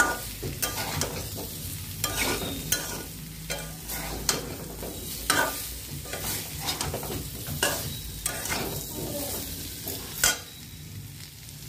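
A metal spatula stirring and scraping cubes of raw jackfruit frying in oil in a metal kadai. Irregular scrapes of metal on metal come about once a second over a light sizzle.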